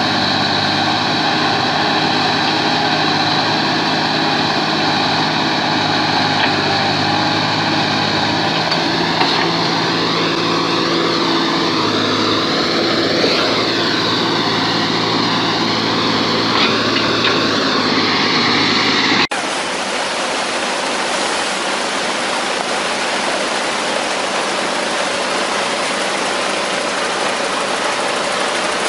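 Diesel engines of a Komatsu excavator and a crawler bulldozer running steadily under load as they shift a large log, the pitch rising and falling for a few seconds in the middle. About two-thirds of the way through, a sudden cut to a loaded logging truck's engine running on a gravel road, a rougher noise with no clear pitch.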